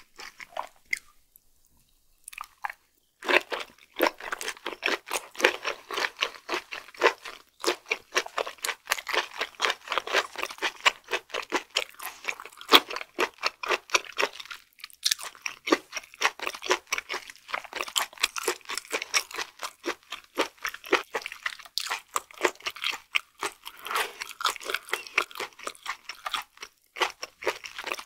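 Close-miked chewing of raw flatfish sashimi, firm and springy flesh: a continuous run of quick wet clicks and smacks. There is a short pause about a second in, and the chewing picks up again about three seconds in.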